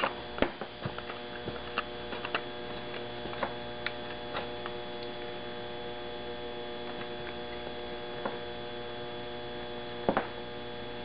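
Steady electrical hum with scattered light clicks and taps, a few together in the first two seconds and a louder pair about ten seconds in.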